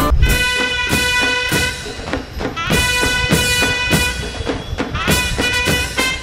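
Instrumental music: long held notes over a steady drum beat.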